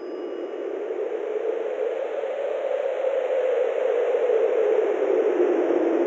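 Wind sound effect: a rushing noise that grows steadily louder and sinks slightly in pitch, standing in for a tornado.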